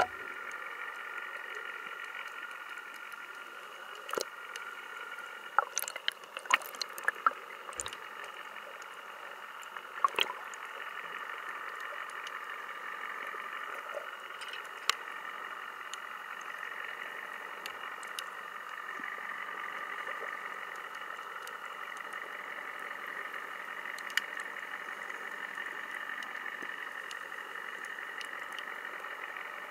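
Underwater ambience picked up by a camera in its housing: a steady hum with scattered sharp clicks, most of them in a cluster between about four and ten seconds in.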